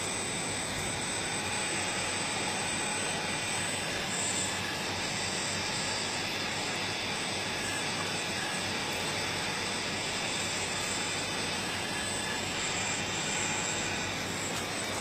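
Radio-controlled scale model excavator working: a steady mechanical whir and hiss, with a faint high whine on top, as the machine runs its drive and swings its arm and bucket.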